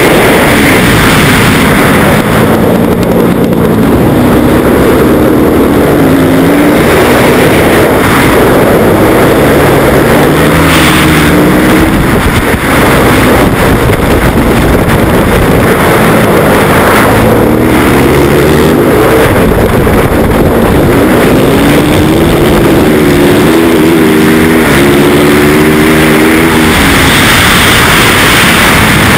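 Yamaha YZ450F's four-stroke single-cylinder engine running hard, heard loud from the rider's helmet. Its revs climb and fall again and again through the whole stretch.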